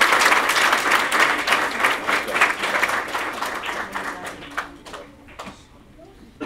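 Audience applause, dense at first, thinning out and dying away about four to five seconds in, leaving a few stray claps.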